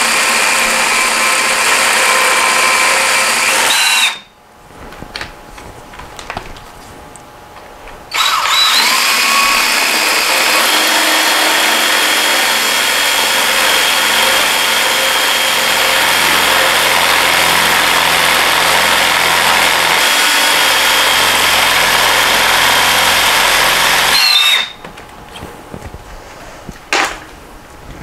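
Power drill boring out a damaged 6 mm dowel pin hole in a Porsche 912 crankshaft, guided through the flywheel. It runs steadily with a high whine, stops about four seconds in, then starts again about four seconds later and runs for some sixteen seconds before stopping near the end, with a few small clicks and knocks in the pauses.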